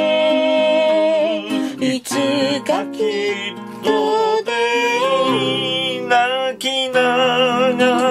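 A voice sings a song with vibrato to a fingerpicked nylon-string classical guitar, pausing briefly between phrases.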